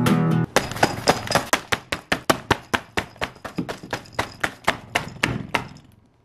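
A classical guitar chord rings and cuts off about half a second in. Then comes a fast run of sharp taps or knocks, about five a second, growing fainter until they stop near the end.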